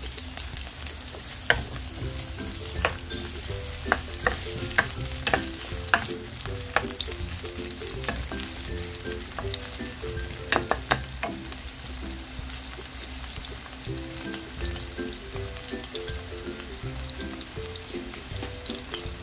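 Sliced red onion and garlic sizzling in oil in a ceramic-coated pan while a wooden spatula stirs them, with frequent light taps of the spatula against the pan.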